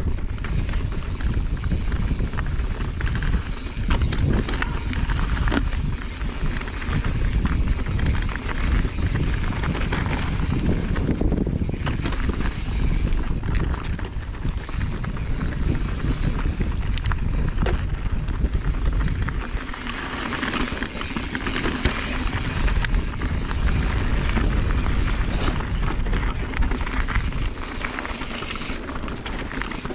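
Mountain bike riding over loose, rocky singletrack: a steady rumble of wind on the handlebar microphone, tyres crunching over gravel and rock, and scattered clicks and rattles from the bike.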